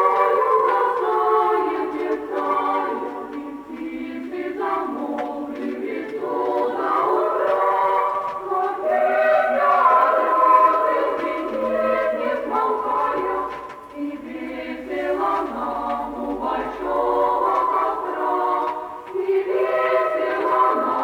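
A choir singing a song in phrases, played back from a vinyl LP, with short breaks between phrases.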